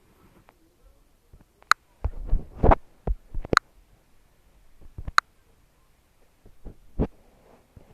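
Handling noise: scattered low thumps, loudest about two to three seconds in, and three sharp clicks. No chime or melody is heard.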